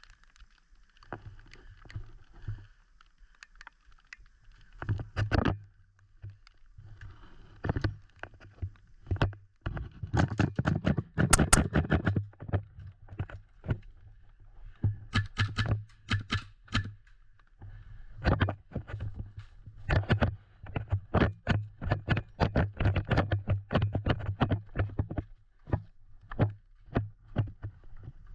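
Footsteps and knocks of a player moving on foot, irregular at first and about two steps a second later on, with a dense flurry of clatter around ten to twelve seconds in.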